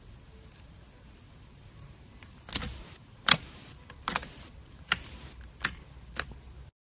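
Slime being squeezed and pressed, popping trapped air bubbles: six sharp pops about three quarters of a second apart, and the sound cuts off abruptly near the end.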